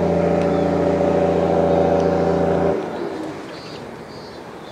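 A boat engine running steadily at idle, then cutting off abruptly a little under three seconds in.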